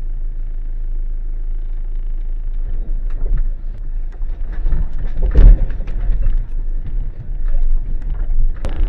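4x4 vehicle driving: a steady low engine and road drone, with irregular bumps and rattles from about three seconds in.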